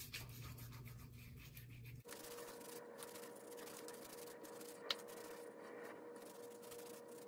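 Faint rubbing of oiled hands massaging pre-shave oil into wet skin of the face and neck, with one short click about five seconds in.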